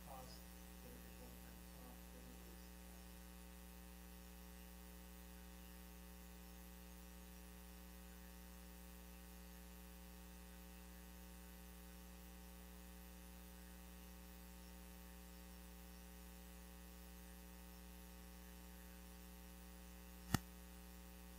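Near silence: a steady electrical mains hum, with one sharp click near the end.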